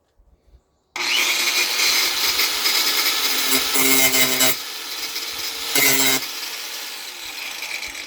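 Angle grinder starting abruptly about a second in and cutting into sheet metal with a harsh, loud grinding. Twice it grows briefly louder with a deeper hum underneath, then it eases off slightly towards the end.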